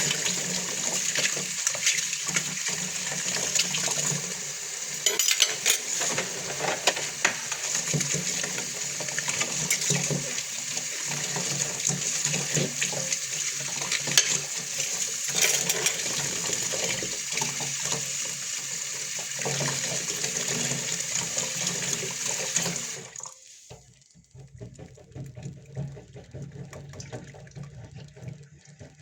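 Water running from a tap into a sink while dishes are washed, with scattered clinks. The tap shuts off about three-quarters of the way through, leaving only faint clatter.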